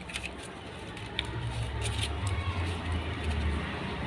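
Yamaha RX100's two-stroke single-cylinder engine running, a low exhaust note that gets louder about a second in.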